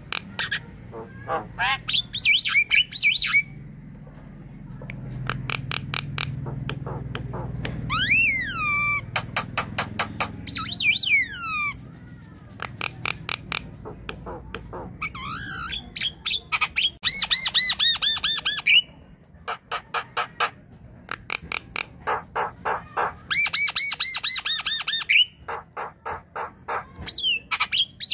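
Javan myna singing a varied chatter: trains of rapid clicks, whistled notes gliding up and down, and harsh squawking rattles, in bouts with short pauses between.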